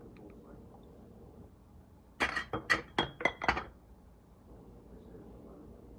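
Glass and kitchenware clinking: a quick run of about five clinks and clatters over a second and a half, starting about two seconds in, with a brief ringing note among them.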